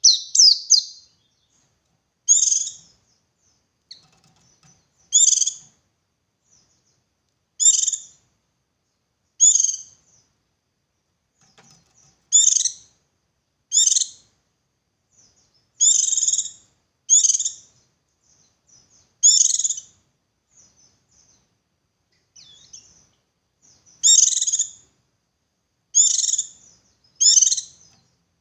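A white-eye (pleci) singing in the 'ngalas' style: short, high chirping phrases repeated every one to two seconds or so, used as a lure to prompt other white-eyes to sing.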